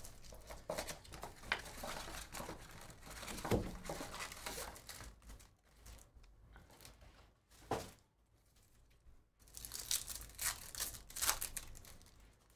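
Trading card box being opened and a card pack wrapper torn open and crinkled. Dense crinkling and tearing through the first few seconds, two sharp knocks, then another burst of crinkling near the end.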